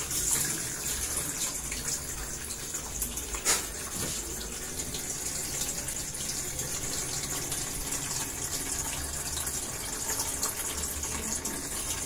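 Water pouring steadily into the wash tub of a Sharp washing machine, filling it to test that a newly replaced drain-valve rubber seal holds water. A single short click sounds about three and a half seconds in.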